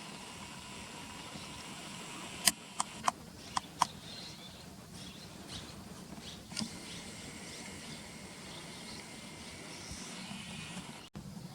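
Outdoor ambience: a steady low hum of distant traffic with a faint high drone, broken by a quick run of five sharp clicks between two and a half and four seconds in, and one more a few seconds later.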